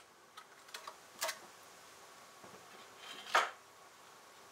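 Knife trimming the excess off a wood veneer patch at a table edge, cutting against a wooden backer block: a few light clicks and taps, then one short scraping cut a little after three seconds in, the loudest sound.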